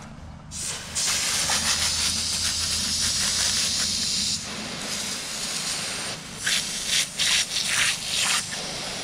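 Garden hose pistol-grip spray nozzle spraying water over a skinned squirrel to rinse it: a hissing spray that starts about a second in, runs loud and steady until about four seconds, then drops lower with several short, louder surges near the end.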